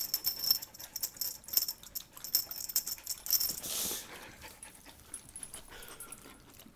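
Small metal tags jingling and clinking in quick irregular shakes for about three and a half seconds, then a short breathy hiss about four seconds in.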